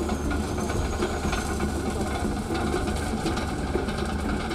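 Heavy mining machinery running at an open-cut coal mine: a steady low diesel engine drone with a dense clattering, rumbling noise over it.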